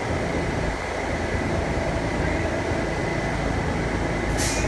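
R68A subway car standing at the platform, its equipment giving a steady low hum and rumble. A short high hiss comes near the end.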